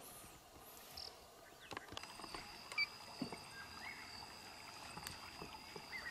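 Quiet open-air ambience: from about two seconds in, a faint steady high whine, with a few soft clicks and knocks scattered through.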